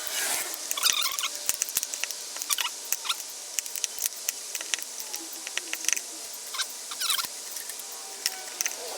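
Scraps of failed ABS 3D-printed plastic being handled and broken up: irregular light crackling and clicking of brittle plastic strands.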